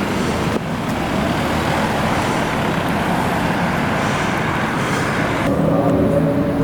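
Rimac Nevera electric hypercar driving: mostly tyre and road noise with no engine note. The sound changes abruptly about half a second in, and again near the end, where a steady low hum with several tones comes in under the road noise.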